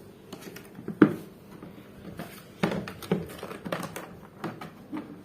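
Handling of the rotary hammer's carrying case: one sharp knock about a second in, then several lighter clicks and knocks.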